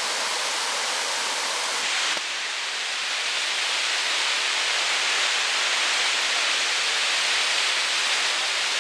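Steady rush of a large waterfall, Burgess Falls, its sound shifting slightly about two seconds in.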